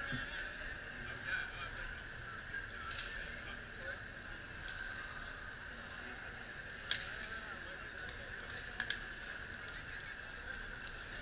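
Distant ball hockey play in a large hall: a few sharp clacks of sticks striking the ball, the loudest about seven seconds in and a quick pair near the end, over steady hall noise.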